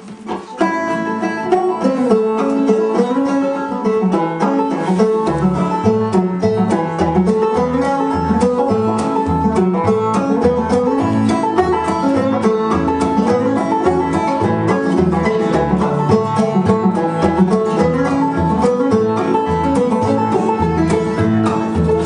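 Old-time string band playing an instrumental passage: a fiddle carries the tune over strummed acoustic guitar and picked banjo. Low bass notes join on the beat about five seconds in.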